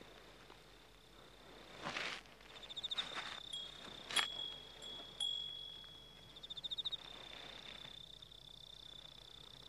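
Faint, high, steady insect trilling with a fluttering pulse in places, punctuated by a couple of sharp light clicks a little after the middle.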